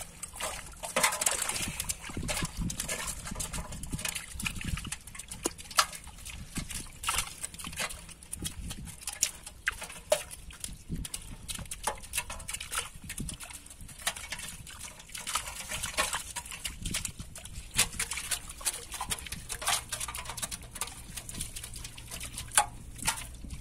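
Splashing and wet clicks and slaps as live prawns are sorted out of a drawn net in shallow water. The strikes come irregularly, several a second, with no steady rhythm.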